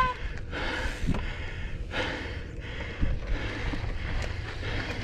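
A mountain biker breathing hard in puffs about once a second while riding, over a steady low rumble of tyres on a dirt trail and wind on the microphone.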